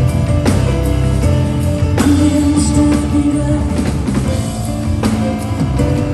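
Live rock band music: drums and bass under held notes, with a woman singing and drum hits about once a second.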